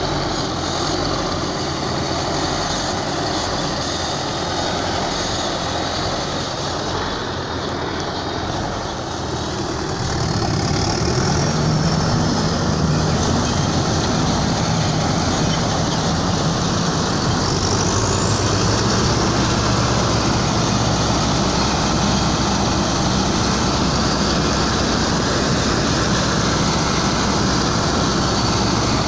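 Niva SK-5 combine harvester running while harvesting wheat, its diesel engine and threshing machinery droning steadily. The drone grows louder about ten seconds in, and a high whine rises a little later and then holds.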